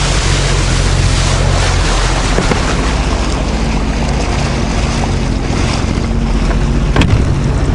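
Jet ski engine running at a steady cruising speed, with water rushing and wind buffeting the microphone. A sharp knock comes about seven seconds in.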